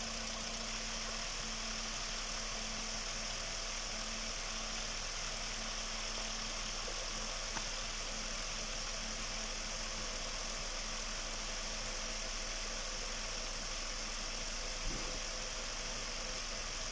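Kia Rio engine idling steadily, warming up with the radiator cap off to bleed air pockets out of the cooling system after a coolant change.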